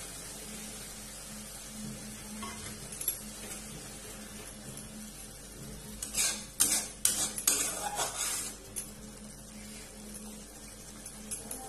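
Metal spatula scraping and clattering against a metal kadai in a quick run of strokes about six seconds in, lasting roughly three seconds. Underneath, the curry sizzles faintly and steadily in the pan.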